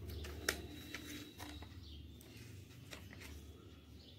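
Faint handling of edible silver leaf (varq) and its thin paper backing as it is pressed onto the sweet: several light clicks and crinkles over a low steady hum.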